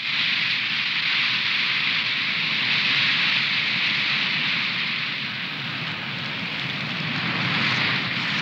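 Wind rushing through fir trees: a loud, steady rushing noise that swells at the start, eases a little in the middle and rises again near the end.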